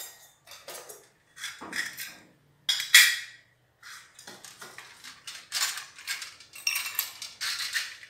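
Brass puja plates, bowls and small pots clinking and knocking against each other and the glass tabletop as they are handled and set down, a string of separate metallic knocks with short ringing, the loudest about three seconds in.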